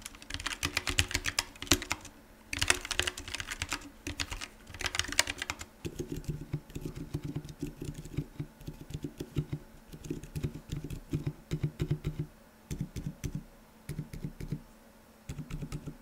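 Typing on two keyboards in turn. First comes a Keychron K1 with low-profile switches, sharp and bright clacking. From about six seconds in comes a Mode SixtyFive custom mechanical keyboard with Boba U4 silent tactile switches, a carbon-fibre plate and a silicone dampening base, a deeper, more muted sound. The typing comes in quick bursts with short pauses.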